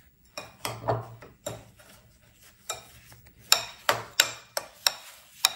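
Metal spoon stirring snow mixed with milk in a ceramic bowl, scraping and clinking against the bowl at an uneven pace, with several sharper clinks in the second half.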